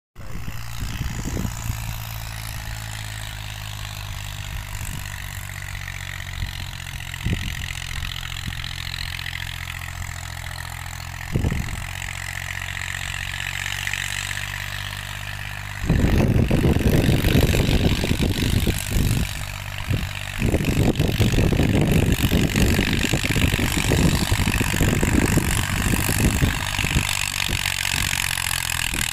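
Deutz-Fahr 55 tractor's diesel engine running with a steady low hum and a few brief knocks. About halfway through a much louder, rough rumble takes over and comes and goes.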